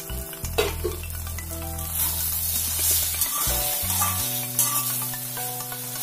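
Egg sizzling as it fries in oil in an aluminium wok, with background music playing under it.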